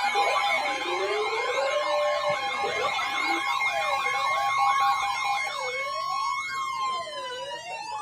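Several sirens sounding at once, their pitches sweeping up and down over a few steady tones. Near the end the sweeps give way to long falling glides as the sirens wind down.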